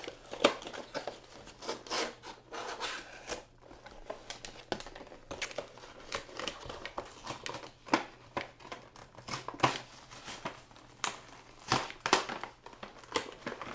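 An action figure's plastic and cardboard packaging being handled and opened: crinkling and tearing with irregular sharp clicks and snaps.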